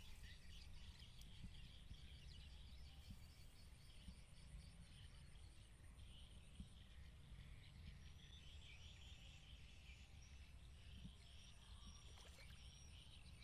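Near silence: faint outdoor ambience with a low rumble, faint high chirping and a thin pulsing high trill that stops about halfway through, plus a few short high chirps near the end.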